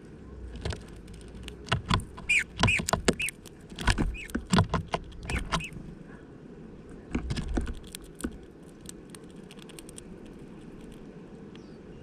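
Male Eurasian bullfinch pecking at seed in a plastic-bottle feeder: runs of sharp clicks and taps as beak and seeds knock against the plastic. The pecking is busiest in the first six seconds, comes again in a short run about seven seconds in, then thins to scattered ticks.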